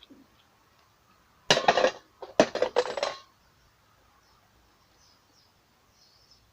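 Metal tools clattering and clinking as they are picked up and put down on a workbench, in two short bursts about a second and a half and two and a half seconds in.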